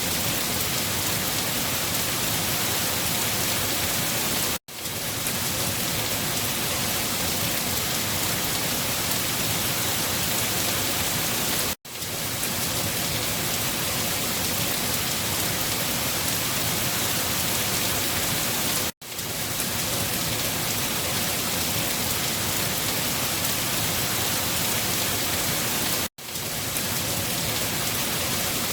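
Steady rain: an even hiss of falling rain. It cuts out for an instant four times, about every seven seconds, and swells straight back in each time.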